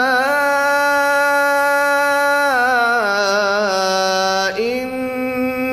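A man's unaccompanied melodic Quran recitation, drawing out the word 'Rabbana' in maqam Hijaz, in its Hijaz Kurd variation. The voice holds one long note, wavers in quick ornaments around the middle, and moves to a new held note about four and a half seconds in.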